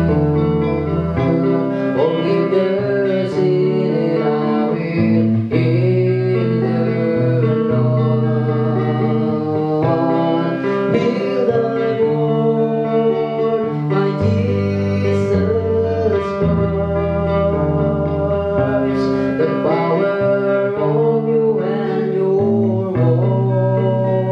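Electric guitar playing sustained notes that bend and waver in pitch, over steady low bass notes, as part of a song's music.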